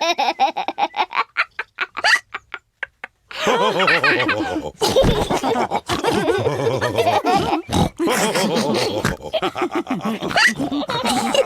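A quick run of short gulping sounds that thins out over the first three seconds. Then cartoon pigs laugh together, with pig snorts.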